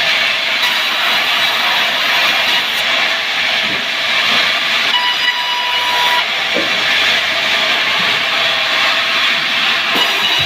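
Powered sawmill saw running and cutting through timber: a loud, steady hissing whine with a faint steady tone, and a few light knocks.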